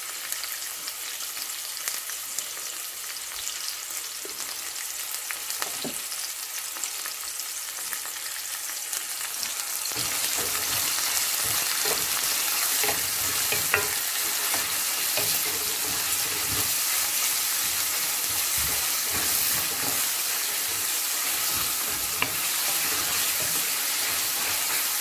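Sliced onions, garlic and green chillies sizzling in hot oil in an aluminium karahi while being stirred with a wooden spatula. The sizzle grows louder about ten seconds in, with a few light knocks of the spatula on the pan.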